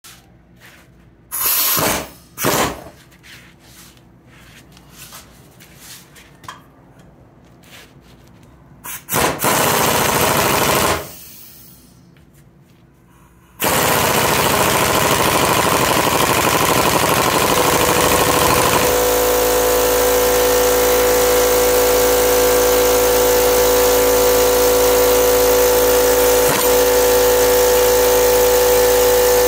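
Power tool in a few short bursts, then from about halfway a machine running continuously and steadily, with a constant hum in it.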